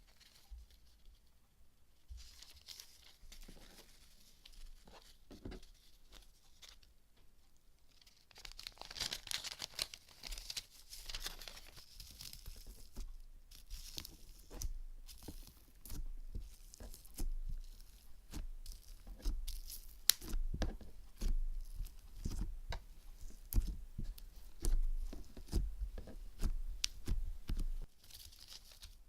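Crunchy slime coated in gold leaf being squeezed and stretched by hand: soft rustling at first, then from about eight seconds in a dense run of crackles and pops with soft squelching thuds.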